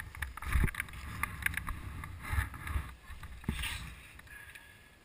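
Wind buffeting a ski camera's microphone, with several dull knocks and thumps. It dies down after about three and a half seconds.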